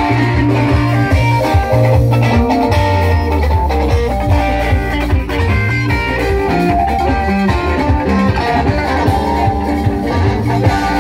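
Live band playing an instrumental passage: electric guitars picking interlocking melodic lines over a steady bass guitar line and drums.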